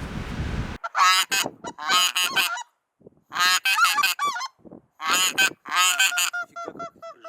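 Geese honking in several quick, overlapping bursts, with a run of evenly spaced calls fading out near the end. Under a second in, heavy wind rumble on the microphone cuts off abruptly.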